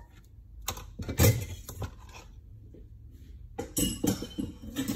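Kitchenware clinking and knocking as dishes and containers are handled on a counter: a cluster of clinks about a second in, and another starting near the end.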